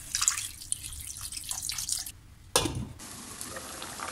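Spatula stirring chicken pieces in a stainless steel pan, with wet sizzling and scattered crackles of frying; a sharp knock about two and a half seconds in, then a softer steady hiss of the pan cooking.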